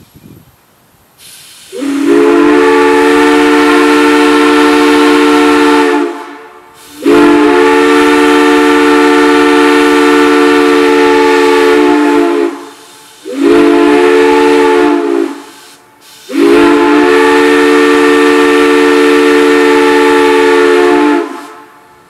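Brass whistle blown on compressed air, sounding four blasts: long, long, short, long. Each blast is a steady chord of several tones with a hiss of air behind it, and the first swells up from a quieter start.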